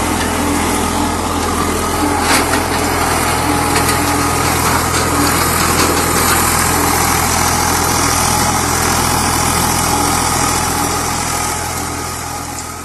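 Tractor engine running steadily under load, driving a PTO rotary tiller (rotavator) as its blades churn through dry soil. The sound fades out near the end.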